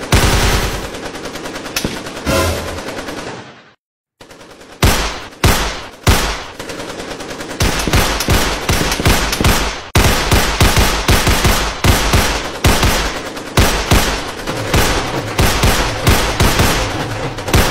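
Gunfire sound effects: shots and bursts of automatic fire, cutting out briefly about four seconds in, then resuming as a few single shots that quickly build into rapid, dense firing.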